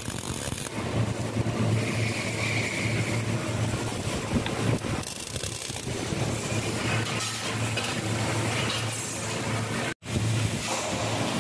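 MIG welding arc crackling as steel flat bars are tack-welded one by one, over a steady low hum. The sound cuts out briefly near the end.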